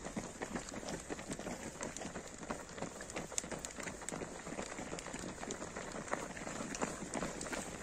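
Footsteps of many runners crunching on a gravel track as they run past: a dense, irregular patter of steps.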